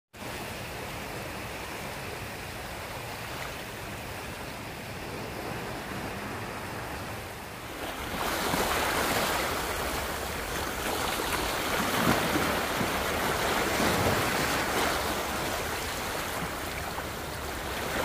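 Shallow seawater washing over a low, seaweed-covered rock shelf. About eight seconds in it gets louder, as small waves break and surge across the rocks, swelling and easing.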